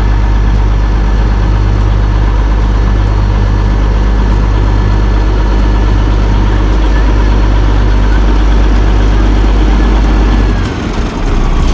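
Diesel locomotive of the Darjeeling toy train running with a steady, loud low hum as it reverses while shunting. The sound drops away near the end.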